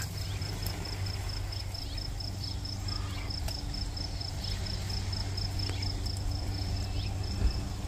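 An insect, a cricket by its sound, chirping in a fast, even pulse of a single high note, over a steady low hum, with one short knock near the end.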